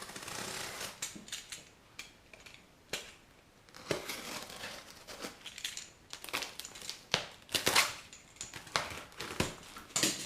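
Cardboard box and packing material being cut and pulled open with a knife: irregular crinkling, rustling and scraping with sharp knocks, busiest and loudest in the second half.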